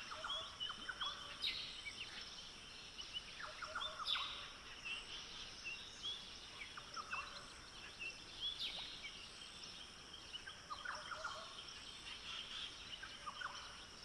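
Rainforest ambience: a steady high insect drone with scattered short chirping bird calls.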